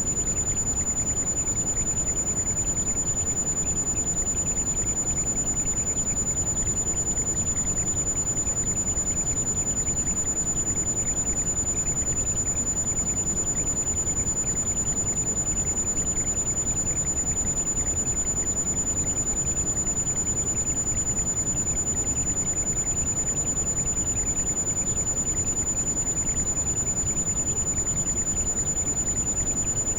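Heavy rain, a steady unbroken rushing noise strongest in the low range, with a continuous high-pitched pure tone held over it, mixed as a tinnitus masking sound.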